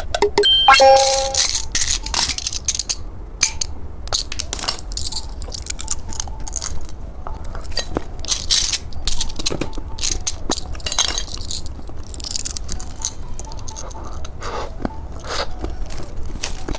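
Irregular clicks, scrapes and crunches from hard candy and plastic candy toys being handled. A short run of electronic tones sounds about a second in.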